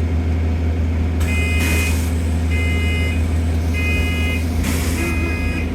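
Repeated electronic warning beep, each about half a second long and sounding about once every 1.2 s, over the steady low hum of a bus engine. Short bursts of hiss come in between.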